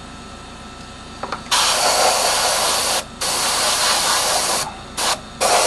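Airbrush spraying primer in hissing bursts as the trigger is pressed and released. It starts about a second and a half in with two long bursts, then a short puff, then another burst near the end.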